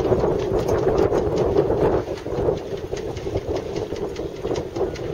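Boat engine running at low speed: a dense, rapid chatter over a steady hum, louder for the first two seconds.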